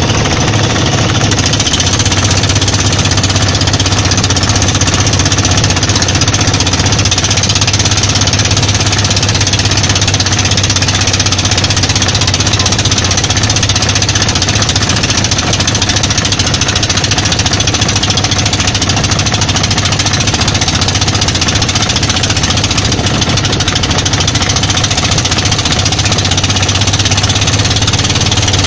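Outrigger boat's engine running steadily at cruising speed, a loud, even drone with a fast pulse, heard from on board.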